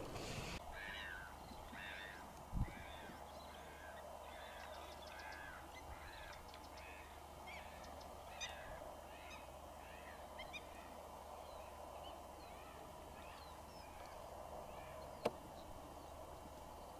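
A bird giving a long series of short, repeated honking calls, about two a second, that trail off about two-thirds of the way through, over a faint steady hiss. A low thump comes a couple of seconds in and a sharp click near the end.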